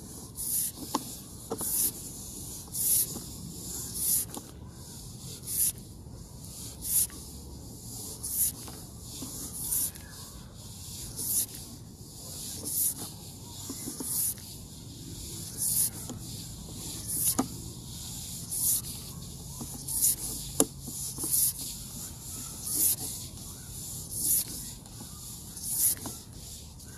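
Sewer inspection camera's push rod being fed hand over hand down the line, each stroke making a short hissing rub, about one every second and a half in a steady rhythm.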